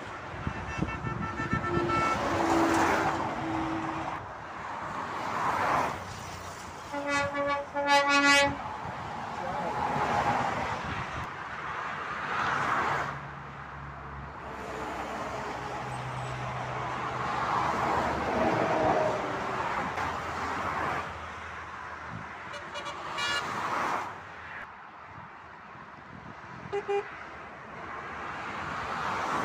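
Motorway traffic passing below, cars and lorries rushing by one after another, with a low lorry engine hum in the middle. A vehicle horn sounds about a second in, and a louder series of short horn blasts comes around seven to eight seconds in, with fainter toots later.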